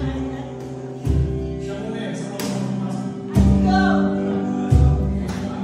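Live band playing a song: guitar chords and a singer, over deep low beats every second or two.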